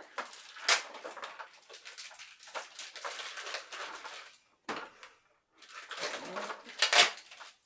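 Rustling and crinkling of toy packaging and paper being handled, with sharp plastic clacks about a second in and again near the end.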